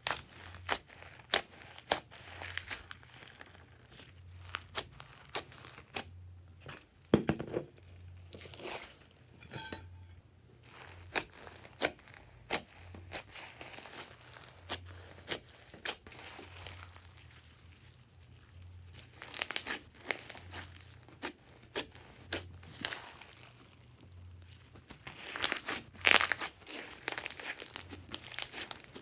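Hands squishing and stretching glossy slime mixed with foam beads: irregular sticky clicks and pops, with denser crackling spells about two-thirds of the way through and near the end.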